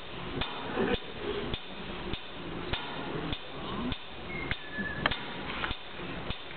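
A steady percussive beat, about five knocks every three seconds, setting the tempo at the start of a fiddle-tune performance.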